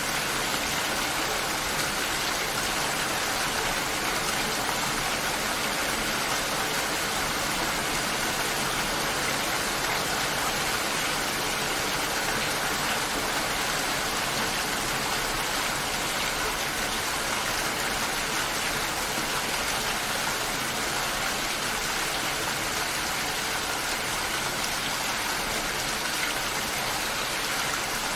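Steady, even rain.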